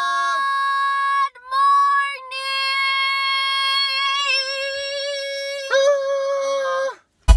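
Intro music: long held high notes, sung or synthesized, that change pitch a few times with a slight waver about four seconds in. It breaks off briefly near the end as an electronic drum beat kicks in.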